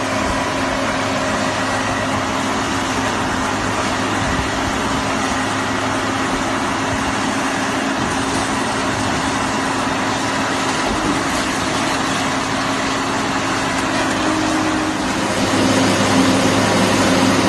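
Scrap car baler's engine running steadily with a continuous mechanical drone, growing a little louder near the end.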